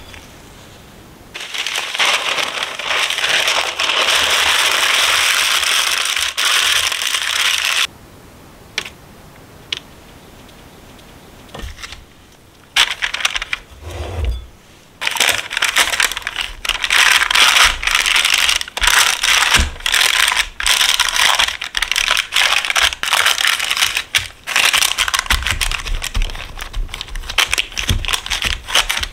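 Crinkling and rustling of parchment paper and a disposable plastic glove as soft glutinous-rice dough is handled and pressed flat in a parchment-lined steamer basket, with a dull thump of the dough being set down about halfway through.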